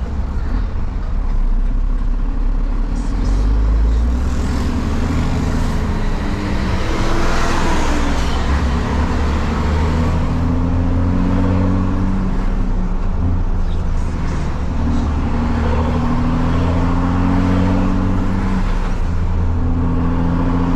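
Diesel truck engine with a straight-through exhaust, heard from the cab, pulling through the gears. The engine note climbs, drops at each shift and climbs again, about three times.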